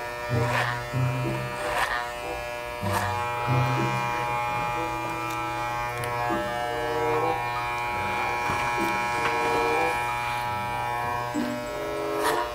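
Electric hair clippers running with a steady buzz, over background music.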